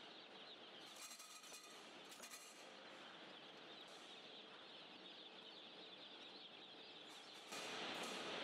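A mass of newly hatched broiler chicks peeping continuously, a dense chorus of high cheeps, with a few clicks and rattles about a second and two seconds in. The peeping gets louder near the end.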